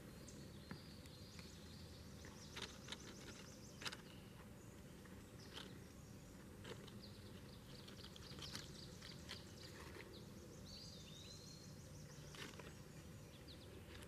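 Near silence: faint outdoor ambience with a few soft scattered ticks and one short, high chirp about eleven seconds in.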